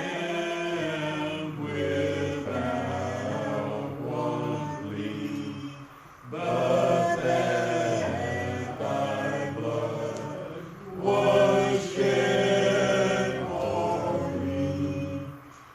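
Church congregation singing a slow hymn together in sustained phrases, with short breaths between lines about six and eleven seconds in.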